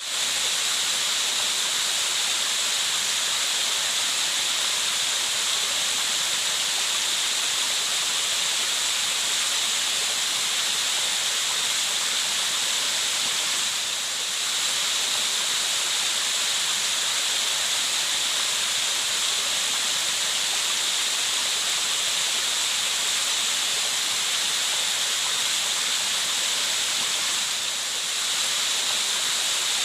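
Steady rushing noise of falling water, an even hiss with no distinct events, dipping slightly and briefly about halfway through and again near the end.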